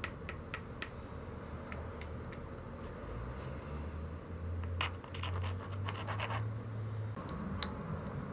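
Small hammerstone working the edge of an obsidian biface held on a leg pad: a run of light clicks, then about a second and a half of scratching a little after the middle, with a few sharper ticks near the end. This is the stone-on-stone sound of flintknapping edge work.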